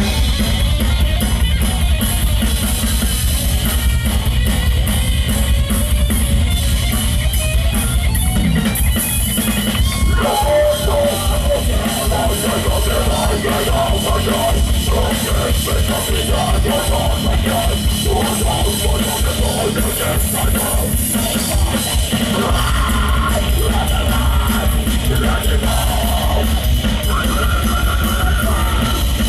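Heavy metal band playing live: distorted electric guitar, bass and drums, loud and continuous. The heavy low end drops away about a third of the way in, leaving the guitar playing a higher figure, and comes back in full about three quarters of the way through.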